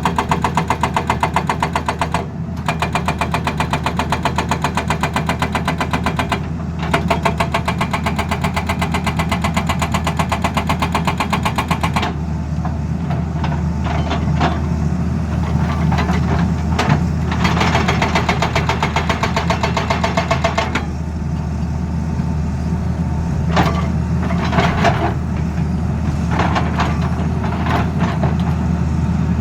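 Hydraulic breaker on a Tata Hitachi Zaxis excavator hammering with rapid, even blows over the engine's steady running, pausing briefly twice. About twelve seconds in the hammering stops, leaving the excavator engine running with a few scattered knocks.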